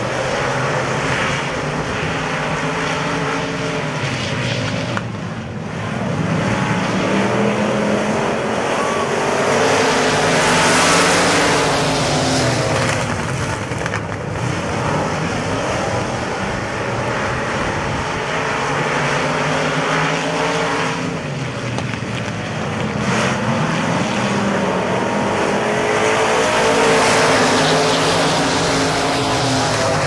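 A pack of dirt-track modified race cars racing. Their engines rise and fall in pitch through the turns, and the sound swells twice as the field goes past.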